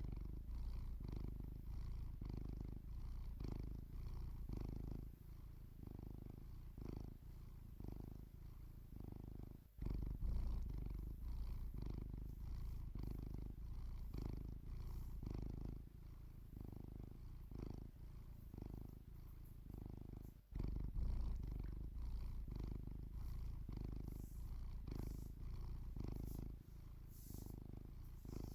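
Domestic cat purring steadily, the low purr swelling and fading in a regular rhythm with its breathing. It breaks off for a moment about ten seconds in and again about twenty seconds in.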